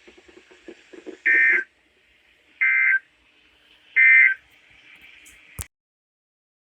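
Emergency Alert System end-of-message data tones: three short, buzzy digital bursts about a second and a half apart over faint radio hiss, closing the broadcast test message. A sharp click follows, then the audio cuts off.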